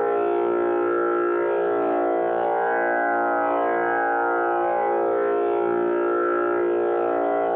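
Tanpura drone tuned to A#: a steady, continuous hum rich in overtones that slowly swell and fade in a repeating cycle as the strings are plucked in turn.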